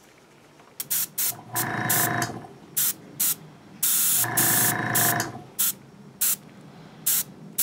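Airbrush spraying paint onto a small model leg, in short hissing bursts of air and three longer passes that carry a steady buzzing tone under the hiss.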